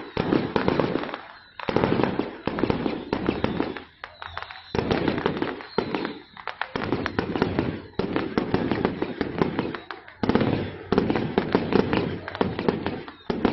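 Strings of firecrackers going off in long rapid crackling runs, each a second or two long, broken by short pauses.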